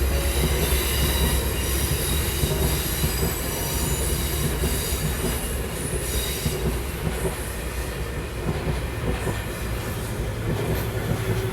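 Passenger train rolling past, a steady rumble of wheels on the rails with faint thin high-pitched tones above it.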